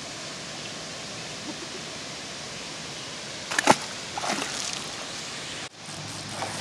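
A bass released back into the water lands with one sharp splash about three and a half seconds in, over a steady background hiss.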